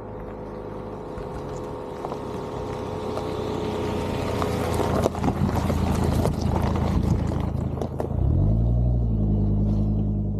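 A motor vehicle's engine and rushing noise building up over several seconds, with scattered clicks. About eight seconds in, a low engine note rises and then holds steady.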